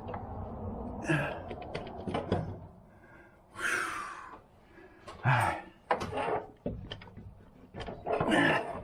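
Scattered knocks, clicks and thunks of metal parts and tools being handled while a front CV axle shaft is worked out of a car's transaxle, with a few short scraping sounds.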